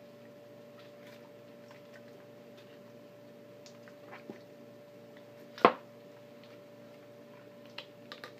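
Raw chicken being worked apart by hand, with faint wet clicks and one loud sharp snap a little past halfway as a joint is twisted apart. A steady faint hum runs underneath.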